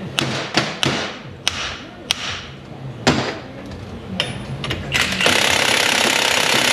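A small hammer striking a Pitman arm puller about six times, sharp metal taps meant to shock the arm's taper loose while the puller is under tension. About five seconds in, a cordless impact wrench runs on the puller for about two seconds; this is the loudest sound.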